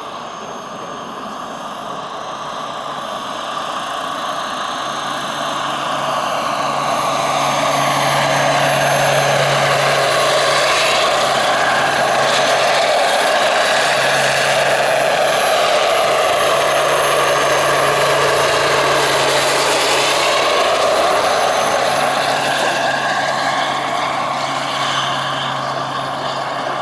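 Turbine-powered 1:5 scale Bell AH-1W Super Cobra RC model helicopter, with a Jakadofsky PRO X turbine, flying past. Its turbine and rotor sound grows louder over the first third, stays loud through the middle with its pitch shifting as it passes, then fades a little as it moves away.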